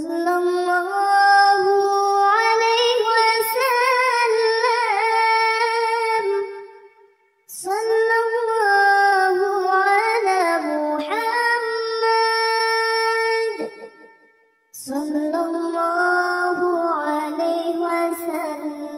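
A high, child-like voice singing a shalawat (Islamic devotional chant to the Prophet) unaccompanied. It sings three long, wavering phrases, each drawn out over many notes, with a short breath-length silence between them.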